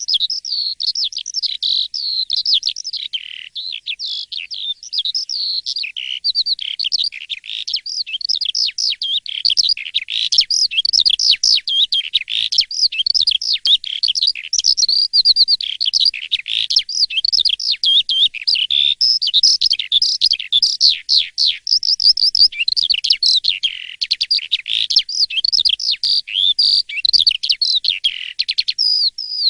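Asian pied starling (jalak suren) in full song: a long, unbroken run of fast, varied chattering and whistled notes.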